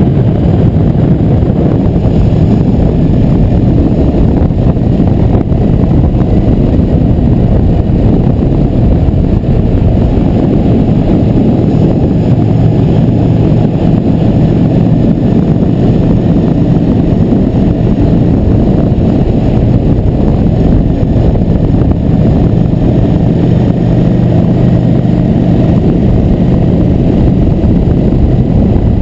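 Cruiser motorcycle's engine running steadily while riding along at road speed, with wind rushing over the microphone.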